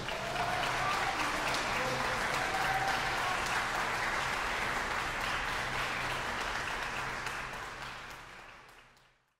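Audience applauding after the performance ends, fading out near the end.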